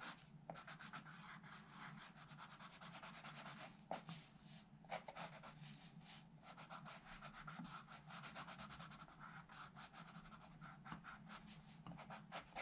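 Faint scratching of a coloured pencil lead on drawing paper, in many short repeated strokes as the outline is drawn.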